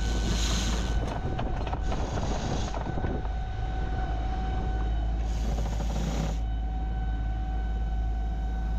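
Wind rumbling on the microphone aboard a sailing yacht, over a faint steady hum. Two gusts of hiss stand out, one at the start and one about five seconds in.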